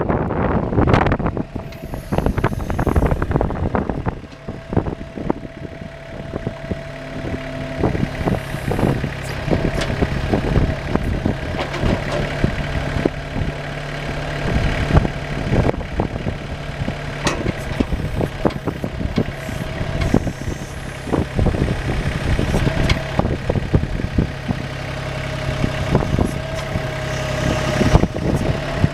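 Mahindra hydrostatic compact tractor's diesel engine running steadily, with a thin high whine that comes and goes and frequent clanks and knocks.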